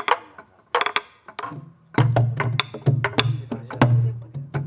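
Several sori-buk (Korean pansori barrel drums) played together. Sharp stick strikes on the wooden shell and rim mix with deep palm beats on the drumhead. A few scattered strokes open, then the group drum pattern starts in earnest about two seconds in.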